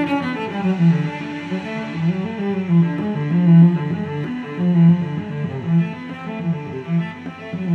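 Instrumental intro music: a slow melody of held low notes with higher notes moving above them.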